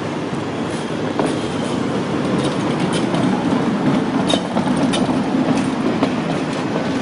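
Articulated electric tram passing close by: a steady rumble of steel wheels on the rails, with scattered sharp clicks and clacks from the wheels and track.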